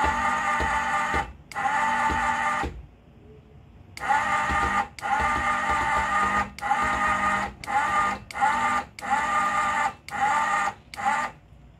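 Motor of a 12-volt electric car floor jack whining as it lifts the minivan, running in spurts with brief stops: two longer runs, a pause of over a second, then about eight short runs that get shorter toward the end.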